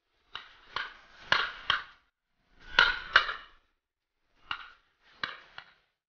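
Shotguns firing, about nine shots with several in quick pairs a fraction of a second apart, each shot with a short echo.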